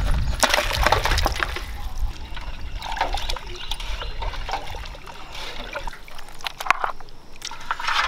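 Water splashing and sloshing in a vessel in irregular bursts, starting suddenly and coming in clusters with short lulls between.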